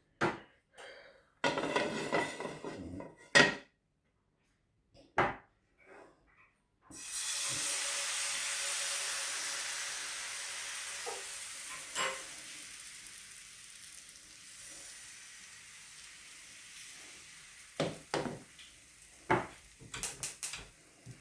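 Utensils clattering against a pan, then rice-flour batter hitting a hot oiled pan: a loud sizzle starts suddenly about seven seconds in and slowly dies down as the crepe sets. A few clinks of a spoon near the end.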